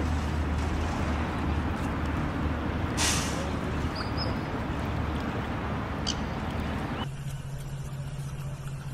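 Steady low mechanical hum under a bed of background noise, with a brief hiss about three seconds in. About seven seconds in, the sound switches abruptly to a different steady low hum at a higher pitch.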